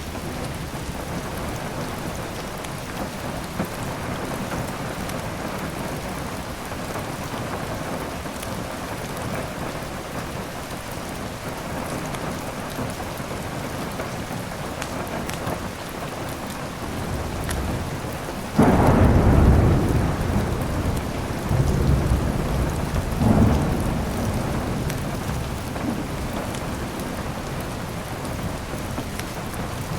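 Steady rain falling, with a thunderclap about two-thirds of the way through: it breaks suddenly and rumbles on for several seconds, swelling once more before fading back into the rain.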